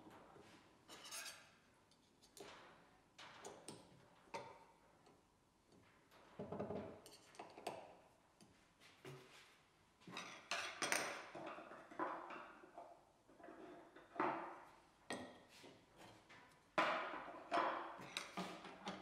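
Metal clinks, clicks and short rattles of a router bit being fitted into a table-mounted router's collet and tightened with a wrench, with a plastic insert ring set into the router-table plate.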